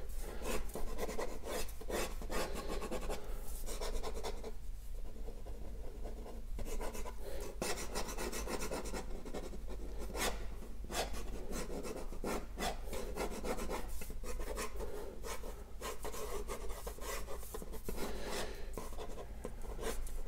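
A BIC ballpoint pen sketching on paper: quick, light strokes scratching back and forth across the sheet, with a pause of about two seconds a few seconds in.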